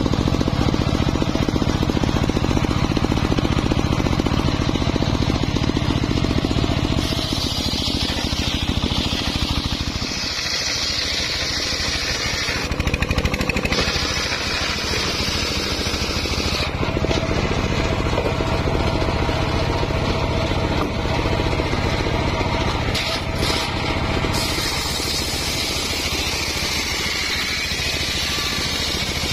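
Homemade engine-driven circular sawmill running, its large blade ripping lengthwise through logs: a steady engine drone under a rough cutting hiss that rises and falls in pitch and loudness, changing abruptly several times.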